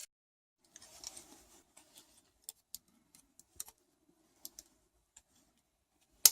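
Light scraping and scattered small clicks of an opened multimeter's fuse holders and glass automotive fuses being handled and fitted, with one sharp click near the end.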